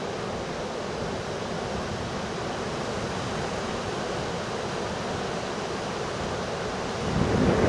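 Steady roar of heavy surf and wind from a hurricane swell. Near the end a louder, lower rumble comes in.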